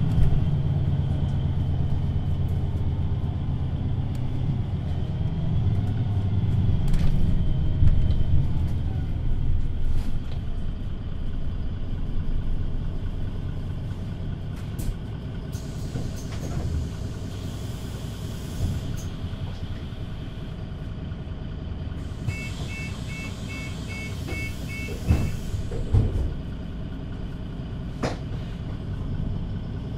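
The diesel engine of a VDL Citea LLE 120 low-entry city bus runs, louder at first and then quieter from about halfway through. A hiss comes twice in the second half, along with a run of about eight quick evenly spaced beeps and a few knocks near the end.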